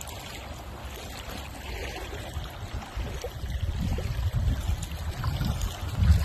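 Shallow lagoon water lapping and trickling at the shore, with uneven wind gusts buffeting the microphone that grow stronger over the second half and peak near the end.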